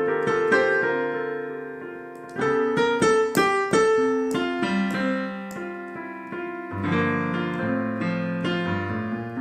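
Solo piano introduction to a song: chords struck and let ring, with a lower bass line coming in about seven seconds in.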